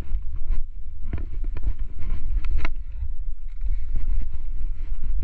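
Wind rumbling on the action camera's microphone, with irregular clicks and scuffs of a hiker's steps on rock.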